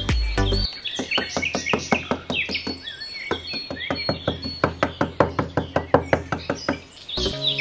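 Quick, even taps of a small hammer on a blue plastic form set in sand, about five a second, with birds chirping behind them. Music plays briefly at the start and comes back near the end.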